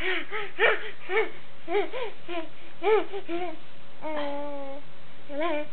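A baby babbling and squealing: a quick run of short, high, up-and-down vocal sounds, then a longer held one about four seconds in and a short one near the end.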